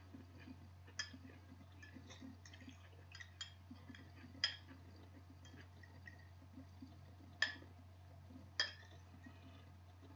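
Eating utensil clinking and tapping against a dish while eating salad, with four sharper clinks among lighter taps and soft irregular chewing sounds between them. A steady low hum lies underneath.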